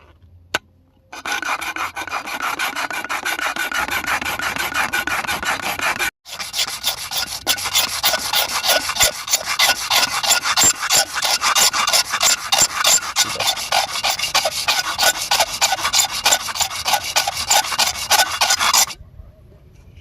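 Fast rhythmic scraping, several strokes a second, of a file or rasp working a hard surface such as wood. It starts about a second in, breaks off briefly near six seconds, and stops about a second before the end.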